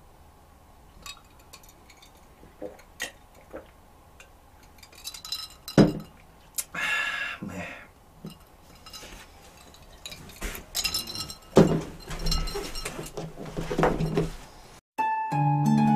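Knocks and clinks of things handled on a wooden table: a plastic hand-held fish-skinning machine put down with one loud knock about six seconds in, and a drinking glass clinking as it is picked up and set down. Light music starts just before the end.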